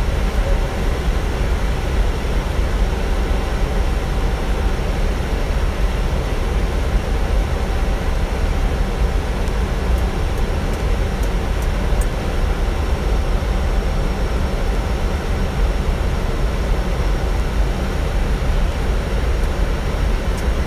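Boeing 777F flight deck noise in flight just after takeoff: a steady rush of airflow over the aircraft with the engines droning underneath, heavy in the low end, and a faint steady whine.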